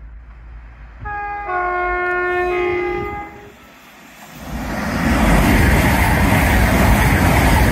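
A CrossCountry train sounds its two-tone horn for about two seconds, the pitch changing twice, as a greeting to trainspotters on the platform. About four and a half seconds in, the train passes at speed, loud and steady.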